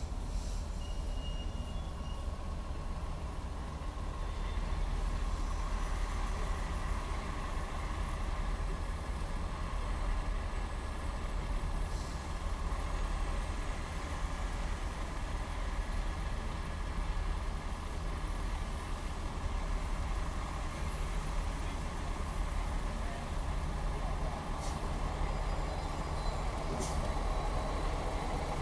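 Steady road and traffic noise from a car driving in traffic: a continuous low rumble of tyres and engines, swelling a little about five seconds in, with a few faint clicks later.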